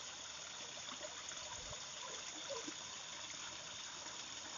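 Low, steady trickle of running water in a shallow pond.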